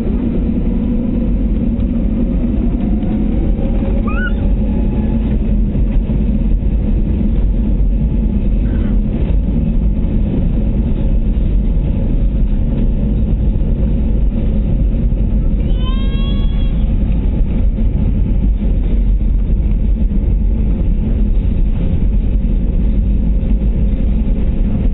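Airliner cabin during the take-off roll: the jet engines at take-off power and the aircraft rolling down the runway make a loud, steady, deep rumble heard through the fuselage.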